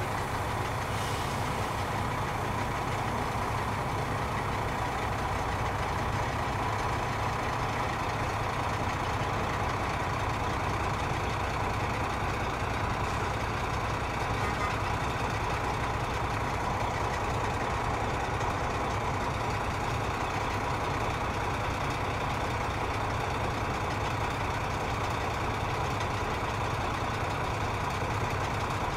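Heavy diesel engine running steadily at a constant speed, with no revving: a low hum with a thin, steady whine above it.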